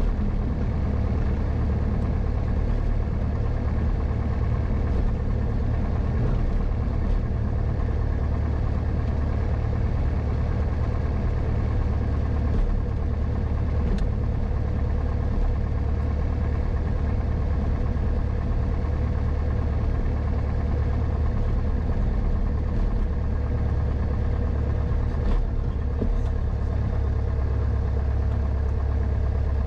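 Grumman AA-5 light aircraft's piston engine running steadily at low taxi power, heard from the cockpit as a constant low drone with a few faint ticks.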